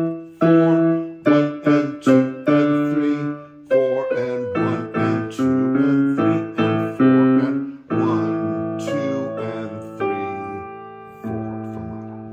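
Yamaha portable keyboard played with a piano voice, both hands playing a simple boogie tune in A. Short struck notes give way to longer held chords, and a last chord near the end fades away.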